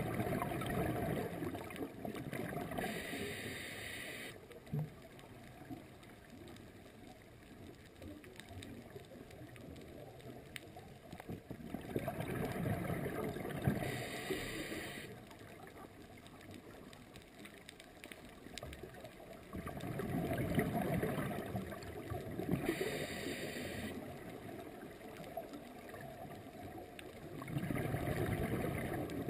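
A scuba diver breathing through a regulator underwater: a short hiss on each inhale alternating with a longer bubbling rush of exhaled bubbles, a breath roughly every ten seconds.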